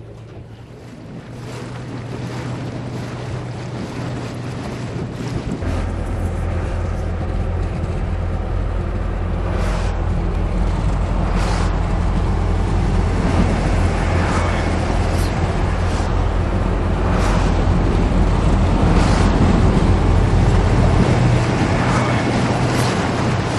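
Boat motor running steadily while water rushes past the hull and wind buffets the microphone. The low engine hum comes in about five seconds in, and the whole sound grows louder.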